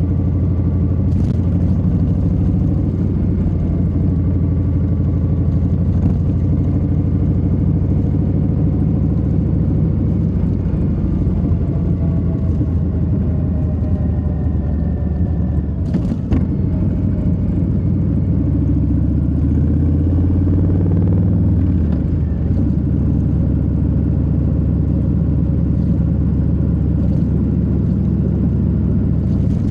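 Harley-Davidson Low Rider S Milwaukee-Eight 117 V-twin running at a steady cruising pace, heard from the rider's seat, its low note drifting slightly in pitch. A short click with a brief dip in loudness comes about halfway through.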